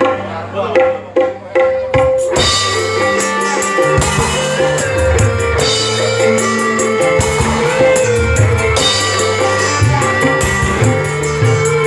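Instrumental break in an Indonesian pop song, with drum kit and guitar and no singing. A few separate drum hits open it, and the full band comes in about two seconds in.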